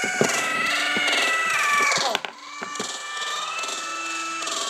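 An electronic sound effect played back from a device: warbling, sliding tones with a few sharp clicks about two seconds in. It sounds weird and pretty scary.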